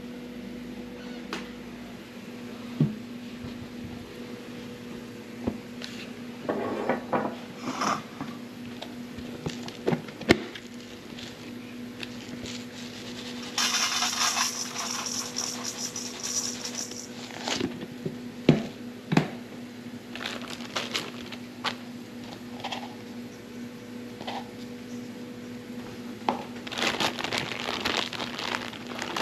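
Hands-on kitchen prep sounds: scattered knocks of things set down on a wooden counter, then rolled oats poured into a stainless steel mixing bowl, a dense hiss lasting about three seconds midway. Near the end a plastic bag crinkles as it is handled. A steady low hum runs underneath.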